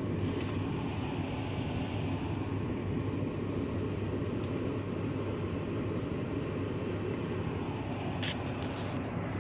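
Steady low drone inside a stationary Volkswagen Touareg 7L's cabin, with a few faint short clicks near the end.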